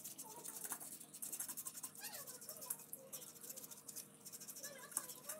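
Faint scrubbing and scratching as a greasy motorcycle engine crankcase half is cleaned by hand with a cloth over a wash bowl, with a few light clicks of metal. Faint wavering animal calls sound in the background.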